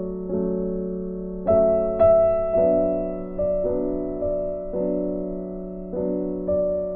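Background music: slow piano chords, a new chord struck about once a second and left to ring out.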